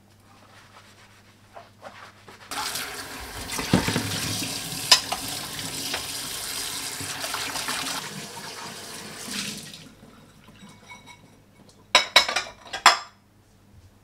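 Kitchen tap running into a stainless sink, splashing into a ceramic bowl as it is rinsed; the flow starts about two and a half seconds in and stops around ten seconds. Near the end, a quick run of sharp clinks and clatters as the rinsed dishes are set into a plastic dish rack.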